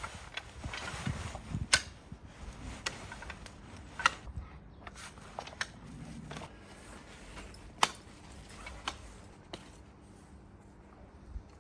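A few sharp, separate clicks over soft rustling, the loudest click about eight seconds in.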